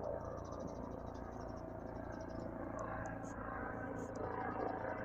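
A distant helicopter flying over, heard as a low steady drone, with high rapid chirping trills running over it.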